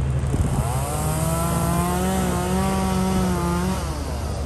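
Small two-stroke chainsaw revving up and running at a steady high speed for about three seconds, then dropping off. A steady low engine hum runs under it.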